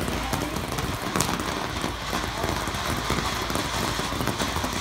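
A firework crackling: a dense, steady shower of quick pops and fizz like heavy rain, with no single loud bang.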